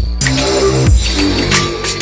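Instrumental electronic background music: sustained bass notes with a deep, falling-pitch kick drum about once a second.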